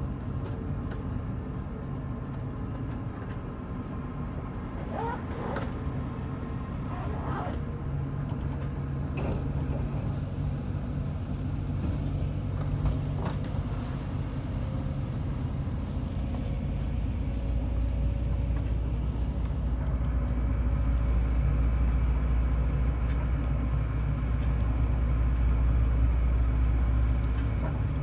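Bus engine and road noise heard from inside the passenger cabin: a steady low drone that grows louder and deeper about halfway through, with a few short clicks and squeaks in the first half.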